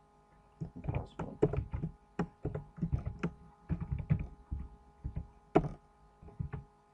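Computer keyboard being typed on: an irregular run of keystrokes, each a short click with a dull thud, one of the loudest near the end.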